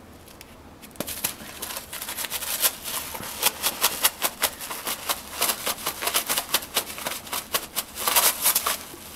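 A cat shredding a crumpled piece of paper with its teeth and claws: rapid crinkling and tearing that starts about a second in.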